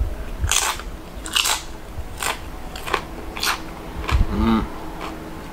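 A tortilla chip topped with chunky salsa being chewed with the mouth close by: a crisp crunch about every second, six or seven in all.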